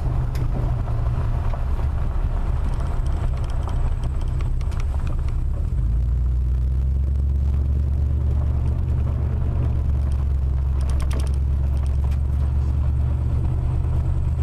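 Car driving on a gravel road, heard from inside the cabin: a steady low rumble of engine and tyres that gets heavier about six seconds in, with scattered faint clicks and a short run of them near eleven seconds.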